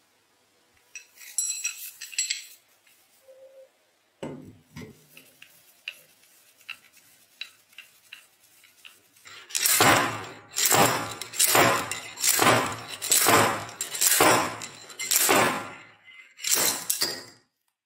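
Steel parts of a threaded-rod bearing puller clinking against a bench grinder's rusty cast-iron end cover as it is fitted, then a run of about nine scraping metal strokes, a little under a second apart, as the tool is tightened to work the bearing in the housing.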